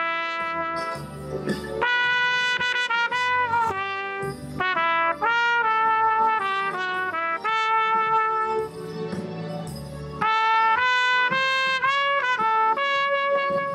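Trumpet playing a melody solo, with held notes broken by quick runs of short notes.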